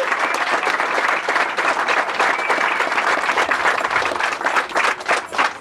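Crowd of guests applauding, dense clapping that thins to scattered claps near the end.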